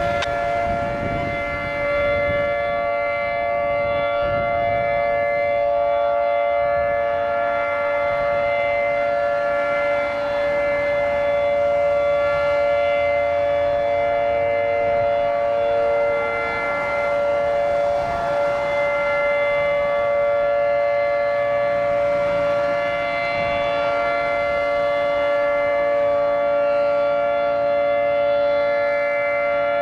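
Federal Signal 2T22 two-tone outdoor warning siren sounding a steady chord of held tones, with no rise or fall in pitch.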